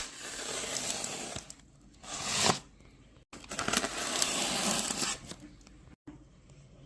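Packaging being torn open and rustled in three stretches: a longer one at the start, a short one about two seconds in, and another from about three and a half to five seconds.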